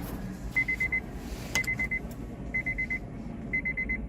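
Electronic beeper sounding quick groups of four high beeps, about once a second, during a timed immobilizer programming step. A single sharp click comes about a second and a half in.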